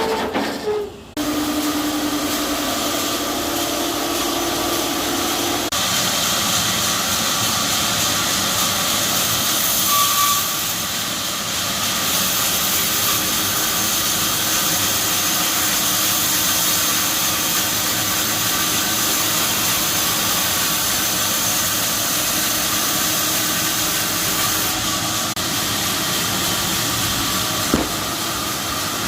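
A woodworking power tool running steadily with a loud, even hiss. It drops out briefly about a second in, and there is a single click near the end.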